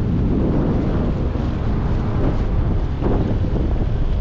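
Wind buffeting the microphone: a steady, dense rumble heaviest in the low end.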